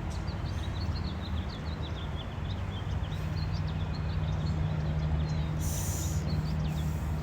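Many small birds chirping in quick, overlapping short notes over a steady low mechanical hum. A brief hiss comes about six seconds in.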